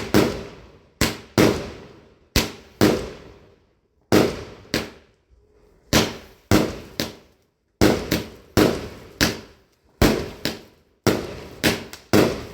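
Fireworks going off in a rapid, irregular string of loud bangs, each with a short fading tail, about twenty in all.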